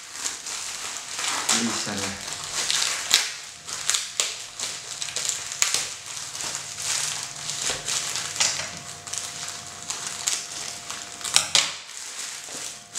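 Plastic courier bag crinkling and rustling as it is torn open by hand, with sharp crackles and snaps throughout.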